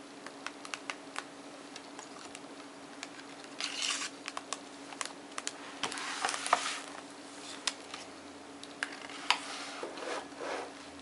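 Paper pop-up book being handled: scattered fingernail taps and clicks on the card pages, with three short spells of paper rustling and scratching as the lift-up flaps and pages are moved. A faint steady hum lies underneath.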